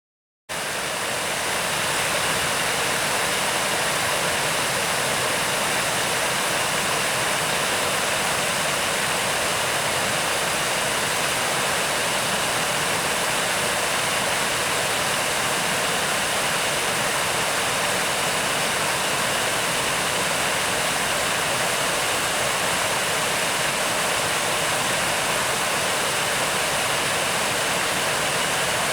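Steady, loud rush of storm water, a torrential downpour with floodwater running, unchanging once it starts about half a second in.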